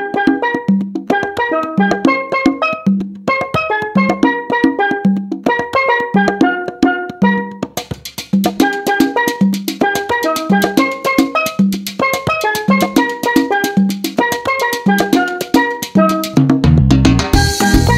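Upbeat background music with a steady beat and a bright repeating melody; it grows fuller about halfway through, and heavier bass and drums come in near the end.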